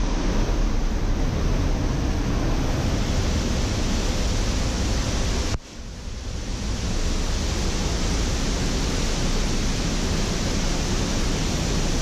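Loud, steady rush of the Pailón del Diablo waterfall close by, dipping briefly a little over halfway through.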